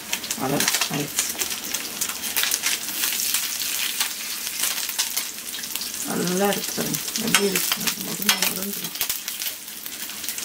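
Nethili anchovies shallow-frying in oil in a pan: steady sizzling and crackling, with spatula scrapes and clicks as they are stirred and turned. The fish are frying slowly on a low flame until crisp.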